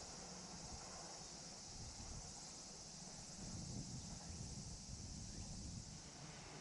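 Faint, steady high-pitched chirring of insects, with a low rumble of wind on the microphone underneath.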